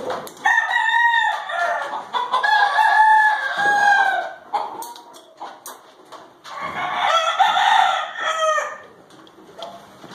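Gamecocks (fighting roosters) crowing, several long drawn-out crows: one group in the first few seconds and another past the middle, with some clucking.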